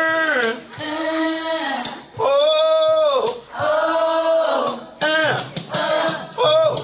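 A man and three women singing together, with several long held notes.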